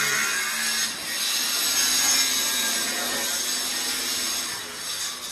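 Handheld angle grinder with a cutting disc cutting through a large ceramic floor tile: a steady hissing whine that dips briefly about a second in and stops near the end.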